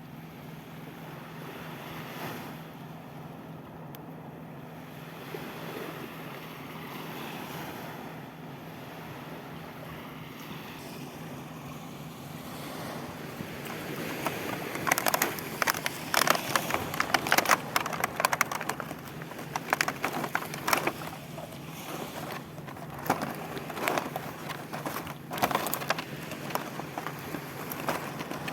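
Wind and surf on the microphone, with a steady low hum. From about halfway, rapid irregular crackling and rustling of the toy packaging being torn open and handled.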